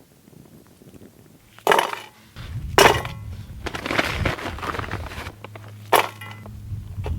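Camp cookware being handled: three sharp metal clanks with rustling and scraping in between, and a low steady hum that sets in about five seconds in.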